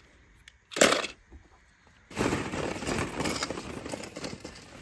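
Hollow plastic ball-pit balls clattering and rustling against each other as a hand digs through them, a dense run of small clicks starting about two seconds in. A short, loud burst comes just under a second in.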